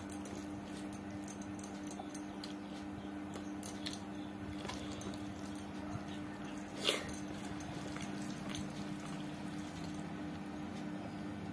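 Eating by hand from a steel plate: fingers mixing and squishing khichdi against the metal, with small clicks and chewing, over a steady low hum. One louder mouth sound comes about seven seconds in.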